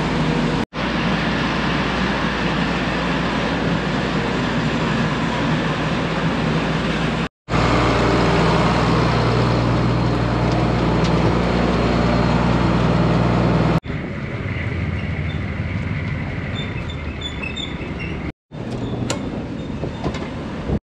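Farm vehicle engines running steadily through several short clips cut one after another, the sound breaking off abruptly about four times; the loudest, deepest stretch runs through the middle.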